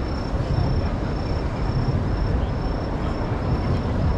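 Busy city street ambience: a steady low rumble of traffic and crowd noise, with a thin high-pitched beep repeating about twice a second.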